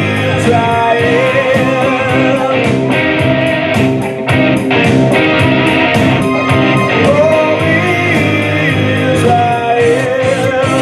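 Band music: guitars over a steady beat, with a gliding melody line on top.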